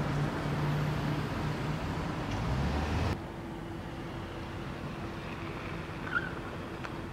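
Outdoor ambience of steady traffic rumble with a low hum. It cuts off suddenly about three seconds in to a quieter steady background with a thin hum, and one short chirp near the end.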